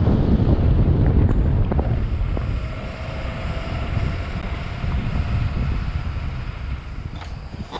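Wind buffeting the microphone over the low rumble of a car driving along a road. The buffeting eases about two and a half seconds in.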